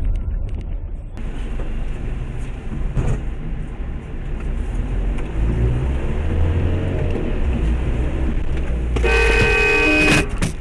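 Steady low engine and road rumble from inside a vehicle. About nine seconds in, a vehicle horn sounds loudly for about a second, then gives a short second toot.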